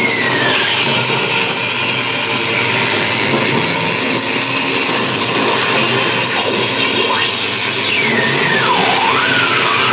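Live noise music played on a laptop and electronics: a loud, dense wall of noise. A high whistling tone is held for a few seconds in the middle, and near the end pitches sweep down and up.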